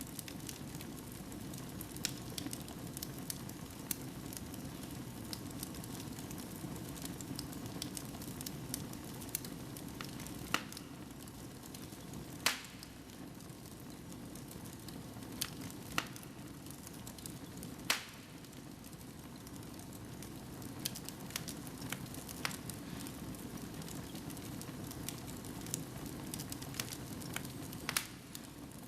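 Fire burning in a fireplace: a steady low rush of flames with frequent sharp crackles and a few louder pops, the loudest about twelve and eighteen seconds in.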